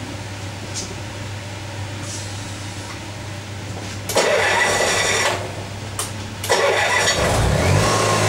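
Honda EX5500 generator engine being cranked twice, catching on the second try and running up to speed, then running steadily. Before it, a workshop extractor hisses steadily.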